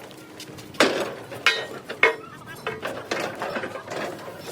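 Irregular metal clanks: about five sharp strikes, roughly half a second to a second apart, each with a brief metallic ring, typical of steel parts being struck or knocked together in heavy steel fabrication.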